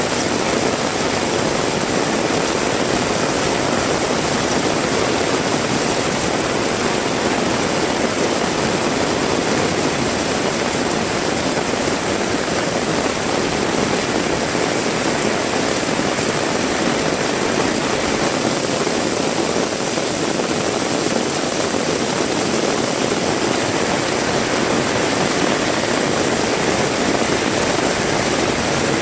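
Heavy rain falling, a dense steady hiss that holds at one level throughout.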